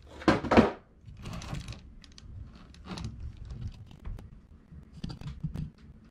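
Close handling noise: two short rustling bursts within the first second, then scattered light clicks and taps.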